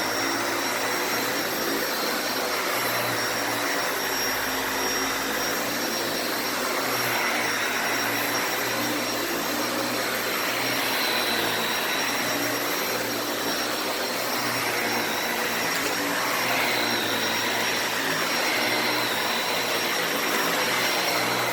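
Dyson Ball Animal 2 upright vacuum cleaner running steadily while being pushed across the floor: an even rush of air with a thin, steady high-pitched motor whine on top.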